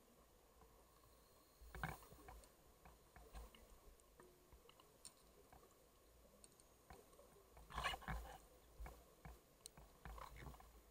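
Faint underwater sound through a camera housing: short bubbly bursts of a scuba diver's exhaled breath, about two seconds in, again near eight seconds and once more near the end, with scattered small clicks in between.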